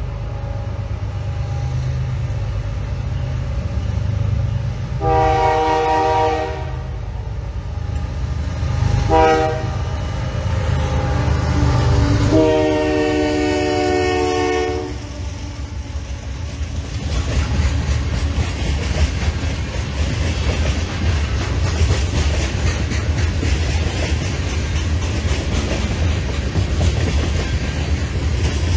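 CSX freight train's diesel locomotives approaching and passing while sounding the horn: a long blast about five seconds in, a short one about four seconds later, and a longer one near twelve seconds that lasts nearly three seconds. After the locomotives go by, the hopper cars roll past in a steady rumble with rapid clicking of wheels over the rail.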